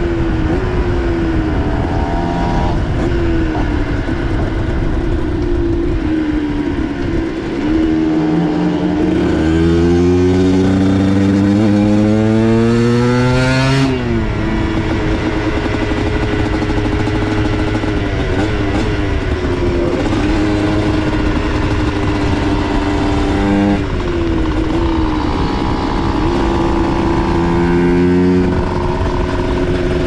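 Aprilia MX125 supermoto's 125 cc single-cylinder two-stroke engine under way, its revs rising and falling with the throttle. About ten seconds in it climbs in one long rising pull for about four seconds, then drops sharply and runs at a steadier note.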